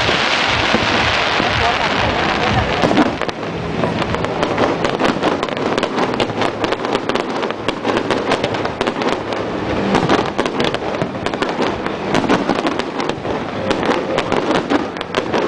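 Fireworks display going off: a dense, continuous run of rapid crackling pops and bangs with no pause.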